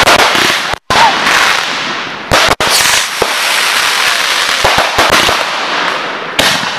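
Aerial fireworks bursting overhead in a loud, continuous barrage of bangs and crackling. The sound cuts out suddenly for a moment twice, about a second in and near the middle.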